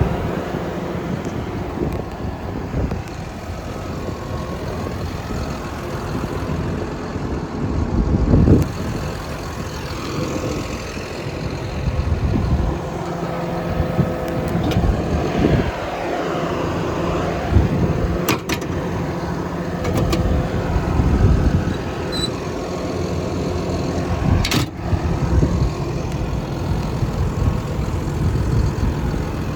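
Caterpillar D6N bulldozer's diesel engine idling steadily, with a few short knocks and clicks along the way.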